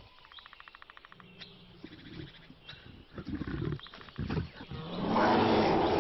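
Brown bears growling and roaring in short bursts from about three seconds in, then a louder, longer roar near the end: the sound of a confrontation between bears.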